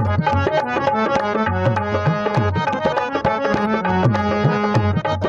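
Harmonium playing a melody over a dholak beating a brisk rhythm, the drum's bass head bending up and down in pitch. This is an instrumental interlude between the sung lines of a Punjabi folk song.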